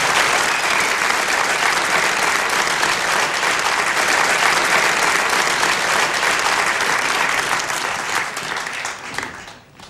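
Concert audience applauding, dying away over the last two seconds or so.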